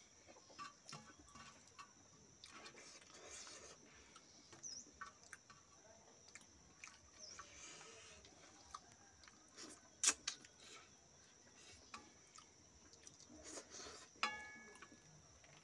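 Quiet eating by hand: soft chewing with small clicks of fingers picking fish off a steel plate. There is a sharp click about ten seconds in, and a tap near the end makes the steel plate ring briefly.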